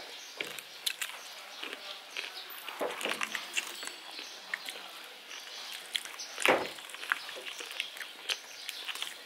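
A whole baked chicken being torn apart by hand: a run of small crackles and clicks as the skin and meat pull from the bones, with one louder thump about two-thirds of the way through.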